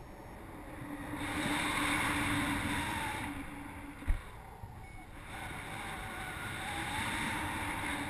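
Airflow rushing over the microphone during a paraglider flight, swelling and easing in gusts. A single sharp knock comes about four seconds in.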